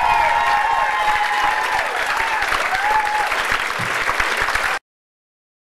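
Audience applauding, with a few voices calling out over the clapping; the sound cuts off suddenly about a second before the end.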